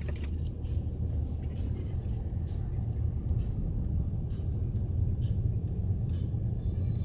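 Car driving at city speed, heard from inside the cabin: a steady low road and engine rumble, with short hisses now and then.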